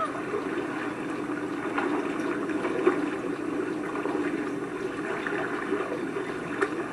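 Lake water sloshing and splashing steadily around a swimming German Shepherd, with small splashes now and then.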